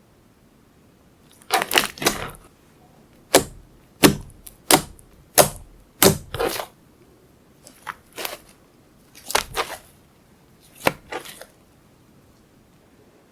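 Slime being pressed and folded by hand, giving sharp, crisp pops and clicks as air pockets burst, about a dozen of them at irregular intervals, some in quick pairs.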